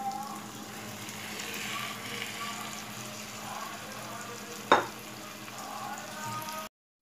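Marinated chicken pieces going into hot, oil-rich onion-tomato masala in a non-stick kadai, sizzling steadily as the masala fries around them. A single sharp knock about four and a half seconds in.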